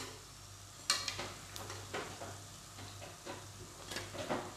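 Spinach pakoras sizzling faintly in hot oil in a kadhai, with a perforated steel skimmer clinking against the pan as the last fritters are lifted out; the loudest clink comes about a second in, then a few lighter taps.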